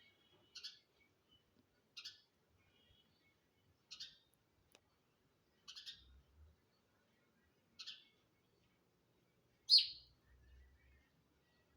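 Sparrow chirping: single short chirps repeated at a steady pace about every two seconds, six in all, the last one near the end the loudest.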